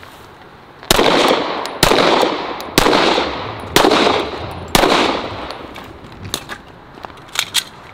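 Five pistol shots fired about a second apart, each a sharp crack with a short echoing tail, a five-round string at 7 yards. A few faint clicks follow.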